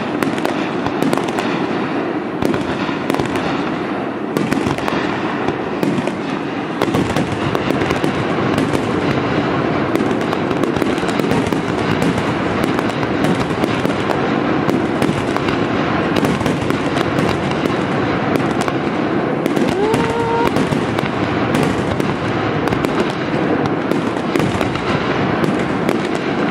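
Fireworks display: aerial shells launching and bursting in a rapid, unbroken barrage, a dense run of bangs and crackling with no pause.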